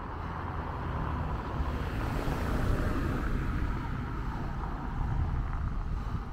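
Wind buffeting the microphone: a steady, choppy low rumble, with a broad hiss of outdoor street noise that swells slightly about two to three seconds in.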